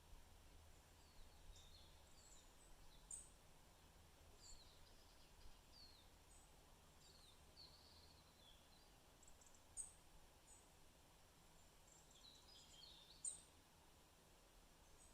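Faint, scattered birdsong: short high chirps and twitters from small forest birds, a few sharper notes standing out, over a soft low background rumble.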